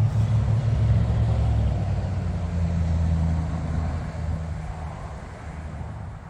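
Distant thunder rolling: a long, deep rumble that swells in the first couple of seconds and then slowly fades.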